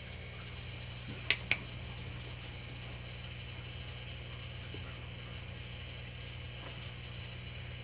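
A steady low hum, broken about a second in by two sharp clicks in quick succession.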